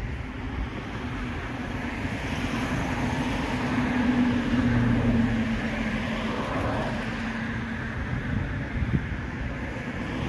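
A vehicle engine hum that swells to its loudest about halfway through and then fades.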